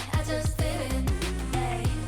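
K-pop song with a female vocal line over a steady, punchy drum beat and deep bass.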